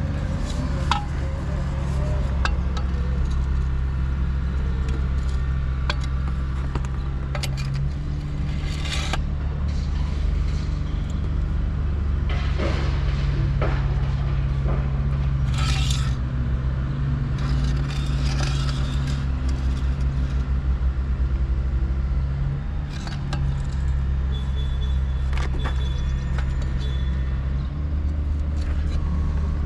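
An engine running steadily with a low rumble, overlaid by scattered clicks, knocks and clatters.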